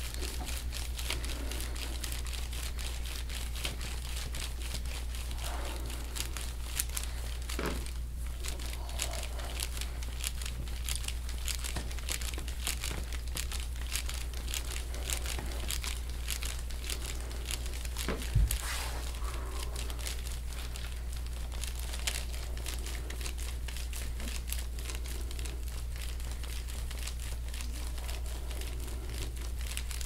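Dense fine crackling and crunching as a forearm presses and rolls over a large muscle knot beside the shoulder blade on a bare back, picked up close. One louder low knock comes about eighteen seconds in, over a steady low hum.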